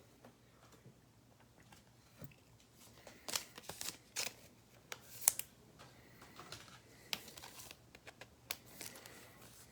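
Baseball trading cards being handled: faint slides and light clicks as cards are flipped through a stack, busiest from about three to five and a half seconds in.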